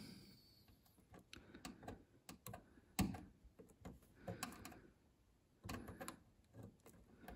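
Faint scattered clicks and light scrapes of a small flat screwdriver and fingertips working a rubber dust seal into the hole around a gas hob's control spindle, the sharpest click about three seconds in.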